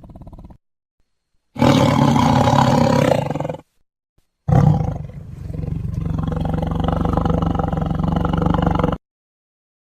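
Tyrannosaurus roar sound effects: the tail of one call, then a loud roar of about two seconds, and after a short gap a longer roar of about four and a half seconds with a steady low tone. Each one cuts off abruptly.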